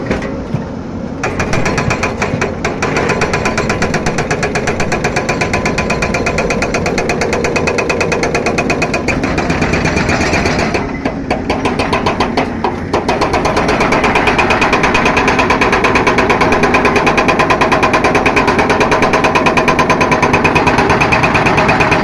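Hydraulic rock breaker on a Cat 320D excavator hammering rock in a rapid, steady run of blows. It eases off briefly about halfway through, then goes on louder.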